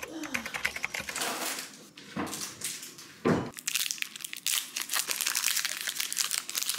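Light clicks and knocks at first, then a foil-lined snack bar wrapper crinkling as it is torn open and peeled back. The sharpest, loudest rip comes a little past three seconds in.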